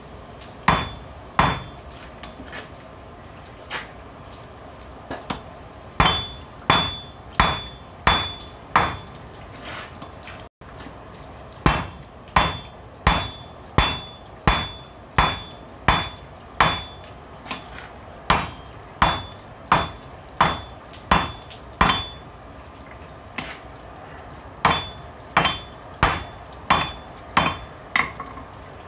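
Hand hammer striking a hot railroad spike on a steel anvil to flatten and thin its end: sharp blows about every two-thirds of a second, many with a bright ring, coming in runs with short pauses between.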